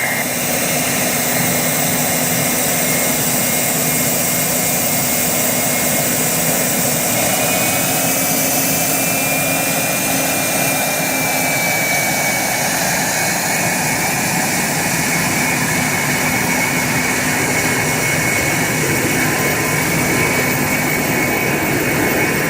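Boeing 777F's GE90 turbofans running at taxi idle: a steady jet rush with a thin high whine over it, the engines not yet spooled up for takeoff.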